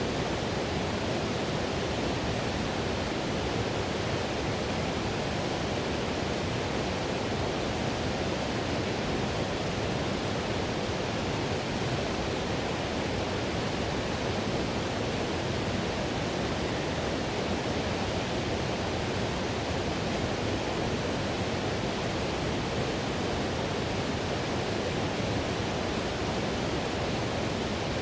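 Whitewater river rushing over rapids: a steady, unbroken roar of water.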